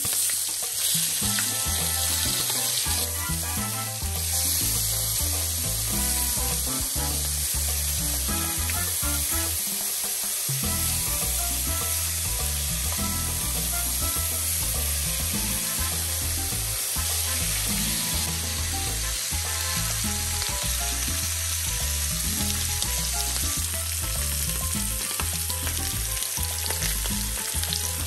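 Bacon strips frying on a very hot grill pan: a steady sizzle.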